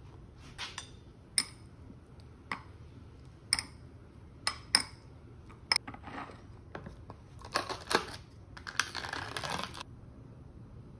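A series of sharp, separate clinks of a metal spoon and a glass dessert cup being handled, with short bursts of scraping and rustling near the end as yogurt is scooped from a plastic tub.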